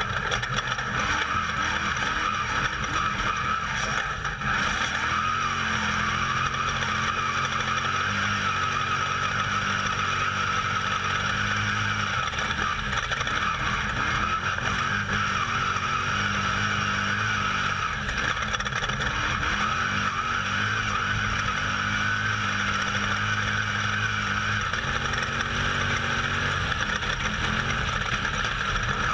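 Off-road race vehicle heard from on board at speed: the engine running hard under a steady wash of wind and tyre noise on the dirt, its pitch shifting a little with the throttle.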